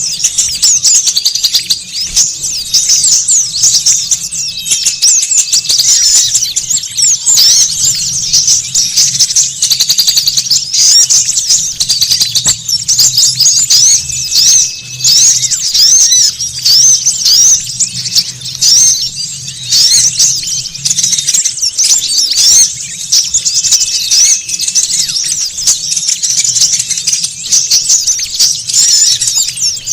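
A flock of small songbirds chirping and twittering at once in a dense, unbroken, high-pitched chorus: the noisy small-bird call used as a lure to draw wild birds in.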